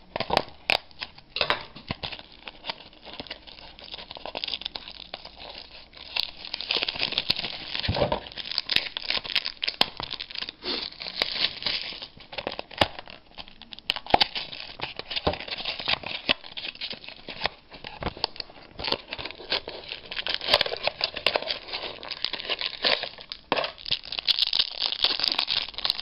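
Trading-card pack wrapper crinkling and tearing as it is worked open by hand, with a dense run of sharp crackles and snaps.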